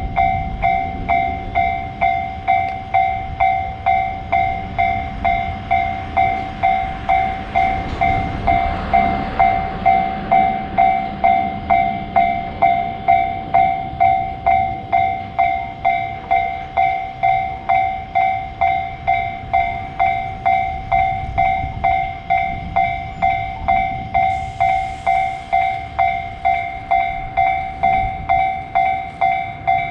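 Japanese level-crossing warning bell ringing repeatedly, about one and a half strikes a second, each strike a ringing tone that dies away. Under it a train rumbles past, loudest around eight to thirteen seconds in.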